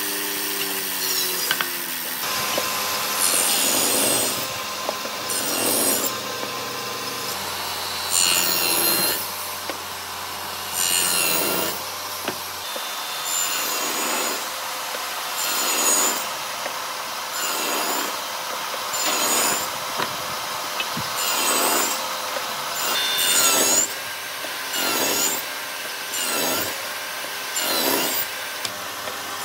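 Hand tool rasping across wood in slow, regular back-and-forth strokes, about one every one and a half seconds.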